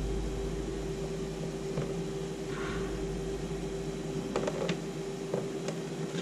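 A steady electrical hum with a low rumble, and a few faint clicks and a short rustle as the multimeter and test leads are handled.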